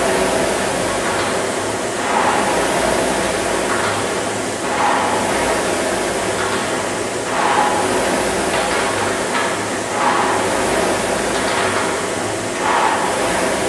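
Rowing machine's air-resistance fan flywheel whirring steadily, swelling into a whoosh on each drive stroke, about one stroke every two and a half seconds.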